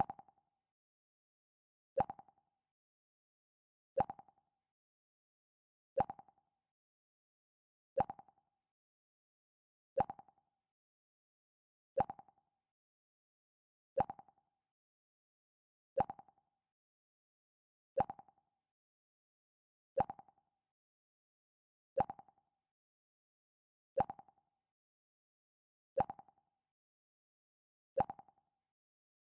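Mac OS X 'Pluck' alert sound: a short, plucked mid-pitched note that dies away within a fraction of a second, repeated every two seconds with dead silence between.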